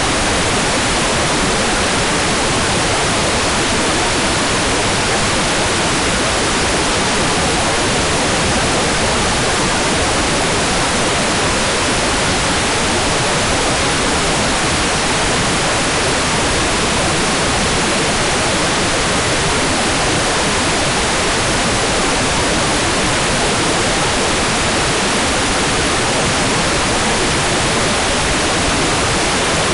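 Hair dryer running steadily: an even, unbroken rushing noise with no change in pitch or level.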